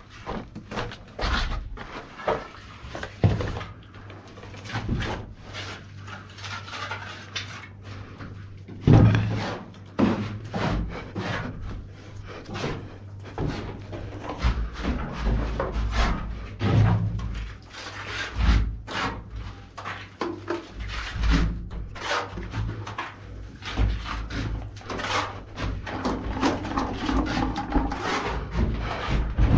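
Irregular scraping, rubbing and knocking of a trowel and bucket as wet cement plaster mix is scooped and tipped out onto a wooden board, with footsteps on a gritty floor.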